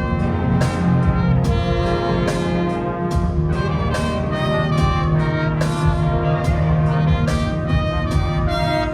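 Wind band playing brass-led music, with trumpets and trombones carrying sustained chords and a series of new note entries throughout.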